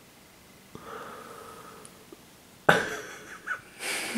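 A woman's breathing and vocal noises, not words: a soft drawn-out breathy sound from about a second in, then a sudden sharp cough-like burst near three seconds, and a short hissing exhale near the end.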